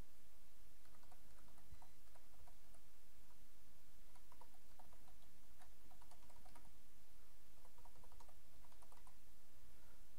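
Computer keyboard typing: faint key clicks in short, uneven runs as a phone number and an email address are typed in, over a steady low hum.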